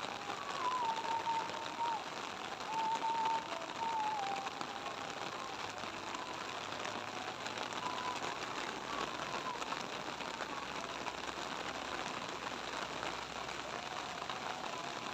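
Steady rain falling and pattering on surfaces. Over it, in the first few seconds, a faint drawn-out voice wavers in pitch, with a few weaker bits of it later.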